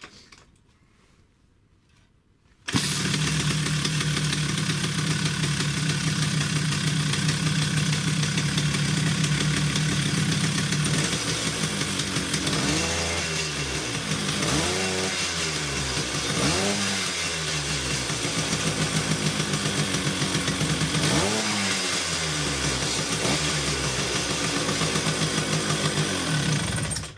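Vespa two-stroke single-cylinder engine with an SI carburettor running, cutting in suddenly about three seconds in after near silence. It runs steadily, with the throttle blipped several times in the middle and once more later, so the revs rise and fall.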